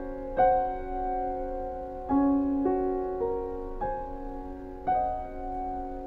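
Background music: a slow, gentle piano piece, single notes and chords struck every second or so and left to ring and fade.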